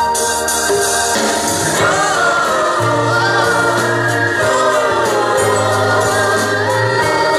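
A mixed group of singers singing together in harmony through microphones, over an instrumental backing. Held bass notes come in about three seconds in.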